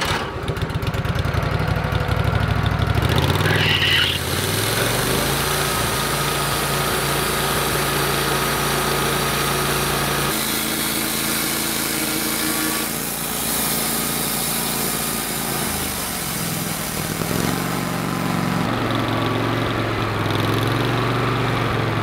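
Portable bandsaw mill's engine revving up over the first few seconds, then running under load as the band blade saws lengthwise through a log. The engine note shifts as the cut goes on and stops right at the end.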